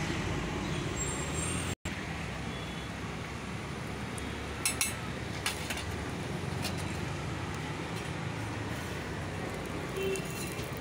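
Omelette frying in oil on a flat griddle (tawa), a steady sizzle with a few sharp crackles about halfway through, over a constant low rumble of street traffic. The sound drops out for an instant near the start.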